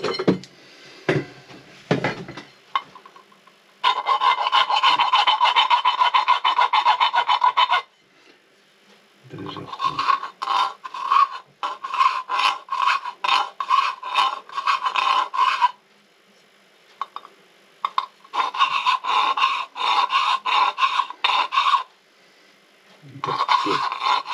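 Hand file drawn quickly back and forth across the rim of a silver cup, smoothing the edge, in four spells of rapid strokes with short pauses between. A few light knocks come before the filing starts.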